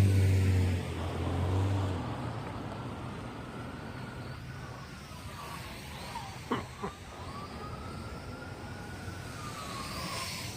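MJX X600 hexacopter's motors and propellers whining, the pitch rising and falling as the throttle works against strong wind. Wind buffets the microphone with a low rumble in the first two seconds, and a couple of brief sharp sounds come about midway.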